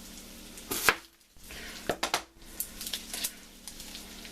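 Kitchen knife cutting a yellow onion on a cutting board. There is one sharp chop just under a second in, then a brief gap, then a quick cluster of knocks around two seconds and lighter clicks after it.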